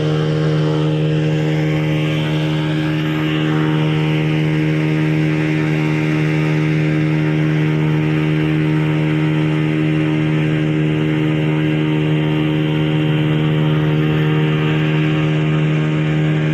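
Small tourist riverboat's motor running at a steady cruising speed, one constant engine tone that does not rise or fall.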